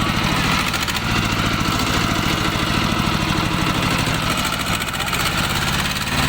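Two-wheel hand tractor's engine running steadily with an even, rapid firing beat and no change in speed.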